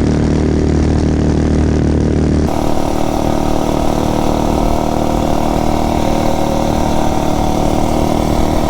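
Tillotson 263 single-cylinder four-stroke minibike engine running steadily while being ridden, freshly rebuilt and being broken in with its carburettor set up rich. The sound changes character about two and a half seconds in, from a strong low hum to a broader, noisier running sound.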